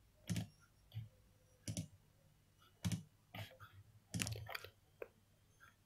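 Computer mouse clicking: a series of faint, sharp clicks at irregular intervals, about one a second.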